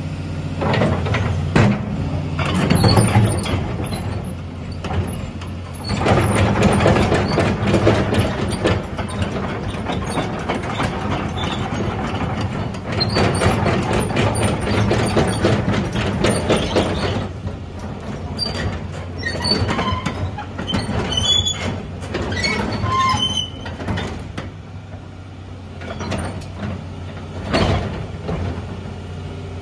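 Doosan DX225LC crawler excavator at work: its diesel engine runs steadily and swells in several louder stretches as it takes hydraulic load, while the steel tracks and linkage clank and knock. Short high squeaks come from the tracks and pins in the second half.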